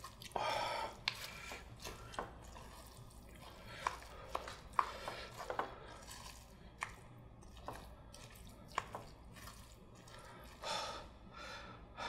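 Metal spoon clinking and scraping against a ttukbaegi earthenware pot as steamed egg is scooped out: a scatter of light clicks and knocks. Two short, soft breathy sounds, about a second in and near the end.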